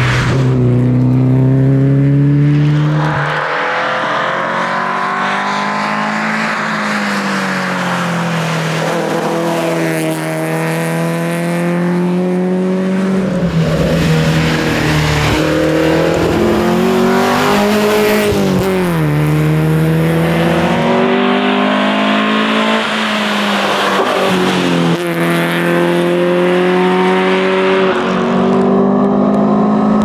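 Volvo 122S rally car's four-cylinder engine revving hard at speed, its pitch climbing through each gear and dropping at the shifts and as it slows for corners, again and again.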